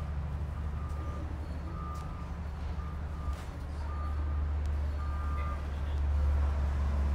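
A vehicle's reversing alarm beeping about once a second, each beep short and steady in pitch, over a steady low rumble that grows louder near the end.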